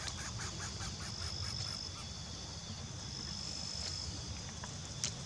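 Insects trilling in the grass: a high, thin steady trill that stops and starts, with a rapid even pulsing chirp in the first two seconds, over a low rumble.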